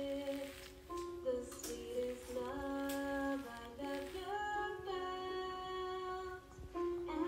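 Music with a high singing voice, a simple melody of long held notes that slide briefly from one pitch to the next.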